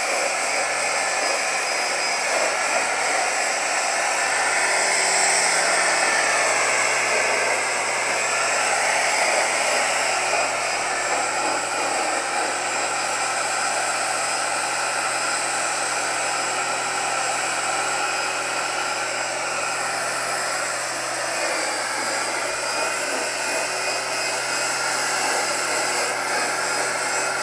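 Corded electric string trimmer running steadily, its nylon line cutting grass. The motor's pitch sags briefly and recovers about eight seconds in.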